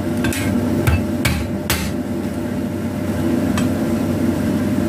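A knife striking lemongrass stalks on a wooden cutting board to bruise them: four sharp thuds in the first two seconds and a lighter one past the middle, over a steady low hum.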